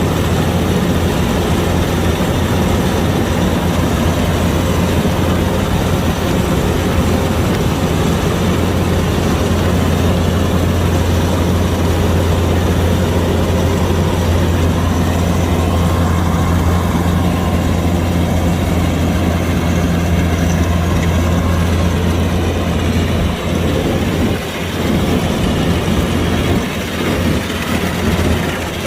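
Kubota DC-105X combine harvester's diesel engine running steadily with a deep, even hum. The sound drops briefly a few times near the end.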